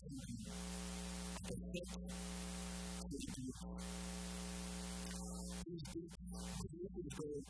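Steady electrical mains hum with hiss, under a man's soft voice in a few short phrases.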